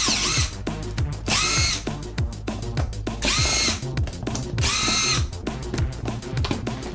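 Cordless drill/driver backing screws out of a hair clipper's housing in four short bursts, each spinning up quickly and running about half a second. Background music with a steady beat runs underneath.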